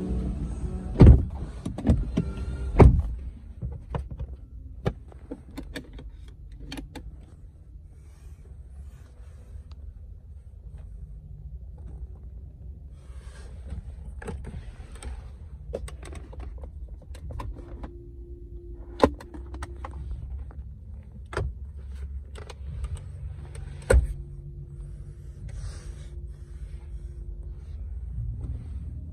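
A few loud thumps about one to three seconds in, then scattered clicks over a low rumble, with a steady electric motor hum twice in the second half, typical of a Volvo S90's power window running.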